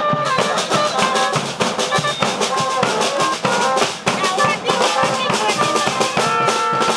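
Football supporters' street band playing: snare drums, bass drums and clashing hand cymbals beat a fast, steady rhythm while brass (trumpets and trombones) holds notes over it, most plainly near the end.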